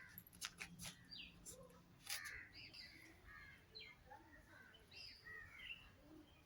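Near silence with faint crows cawing and other birds calling in the background, and a few faint clicks in the first couple of seconds.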